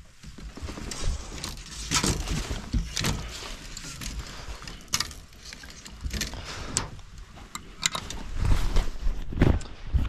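Scattered clicks, knocks and rattles of handling, with low rumbling gusts of wind on the microphone, strongest near the end.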